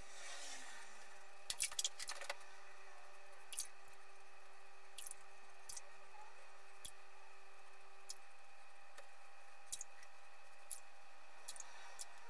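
Merkur 34C double-edge safety razor with an Astra blade scraping stubble off a lathered face on a second pass across the grain: a quick run of short scratchy strokes near the start, then single short strokes spaced a second or more apart.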